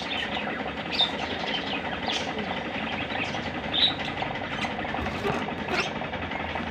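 Pet lovebirds chattering and chirping continuously, with sharp high-pitched chirps standing out, the loudest about a second in and just before four seconds.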